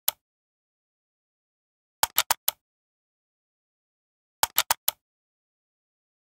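Mouse-click sound effects from an animated like-and-subscribe graphic: quick runs of four sharp clicks, about two seconds in and again about four and a half seconds in, with dead silence between.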